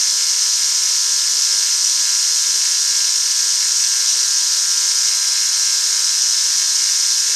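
Metalworking machine tool running steadily during a cut: a constant, even high-pitched hiss with faint steady whining tones underneath.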